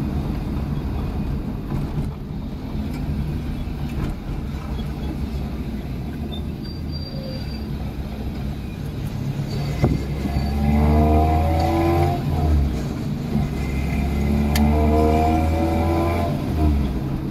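Maruti Gypsy rally car's engine heard from inside the cabin, running steadily while cruising, then revving up twice under acceleration from about ten seconds in, with a short break between the two climbs in pitch.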